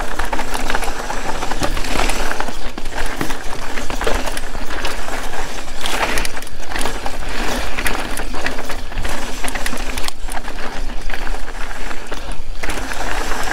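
Mountain bike descending a loose, rocky trail at speed: tyres crunching and skittering over loose, marble-like stones, with the bike rattling and clattering over the rocks in a continuous stream of clicks and knocks. A steady low rumble of wind on a chest-mounted camera's microphone runs underneath.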